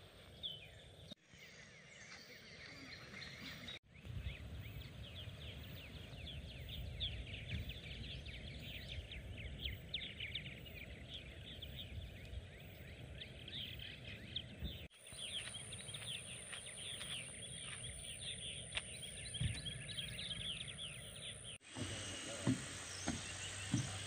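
Outdoor woodland ambience: many small birds chirping and calling throughout. From about two-thirds of the way through, a steady high-pitched insect buzz joins in. Near the end there are a few sharp knocks of footsteps on a wooden boardwalk.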